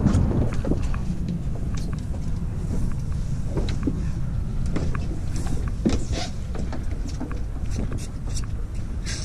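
Wind buffeting the microphone on an open boat deck, a steady low rumble, with scattered light clicks and knocks.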